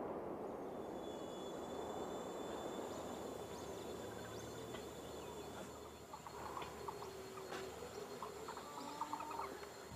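Countryside ambience: a steady high-pitched whine and short chirping animal calls from about six seconds in, over a low rushing noise that fades.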